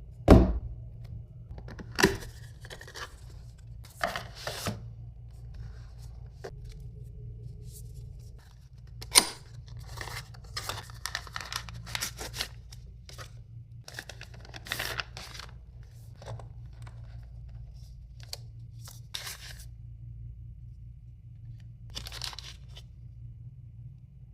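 Packaging being torn open and handled: irregular short bursts of tearing and rustling, the loudest right at the start, about two seconds in and about nine seconds in, over a steady low hum.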